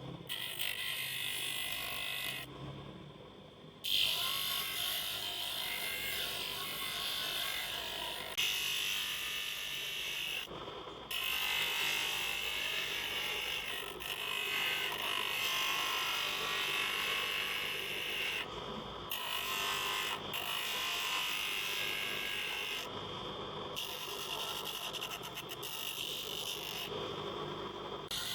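Small handheld electric tool running with a steady high buzz as it works on the plastic, in several stretches that cut off and restart abruptly.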